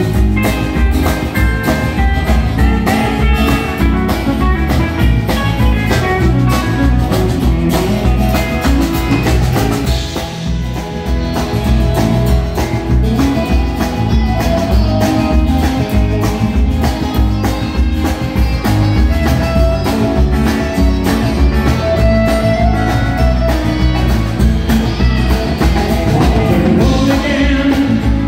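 Live country-rock band playing: electric guitars, bass and drums with a steady beat.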